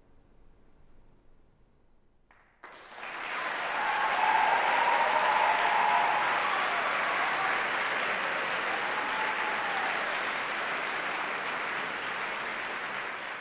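A faint, fading tail in the hall for about two seconds, then a large audience bursts into applause, loud and sustained, with a few voices whooping above the clapping.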